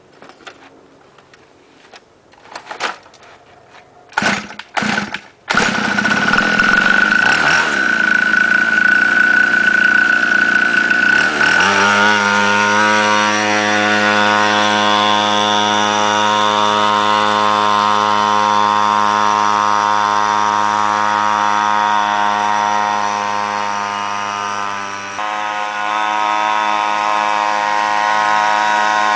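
Small two-stroke engine of a pocket dirt bike being started: a few short coughs and bursts, then it catches about five seconds in and runs loud. From about twelve seconds in it settles into a steady, high-pitched drone, dipping briefly near the end.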